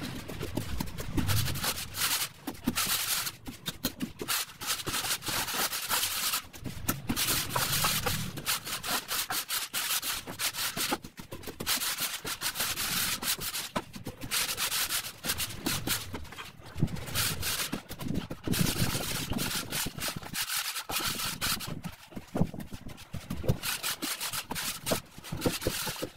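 A wooden straightedge being scraped back and forth across wet sand-and-cement floor screed to level it: a gritty rasping in repeated strokes of a second or two each, with short pauses between them.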